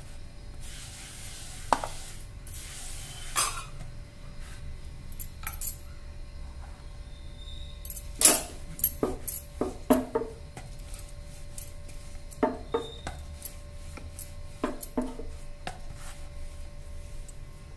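Wooden rolling pin rolling dough thin on a round wooden board. A soft rubbing hiss of the pin over floured dough runs through the first few seconds, and irregular wooden knocks and clatter follow as the pin and board shift, most of them in a cluster about 8 to 10 seconds in.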